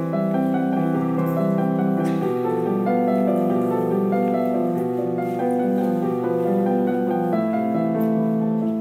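Background film score on piano: slow, sustained chords and melody notes that change every second or so.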